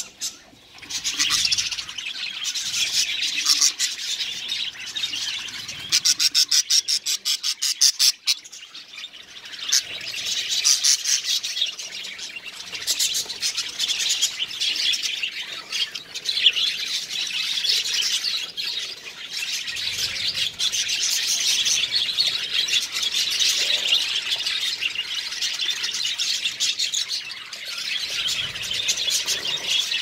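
Budgerigars chirping and squawking without a break, a dense high-pitched chatter.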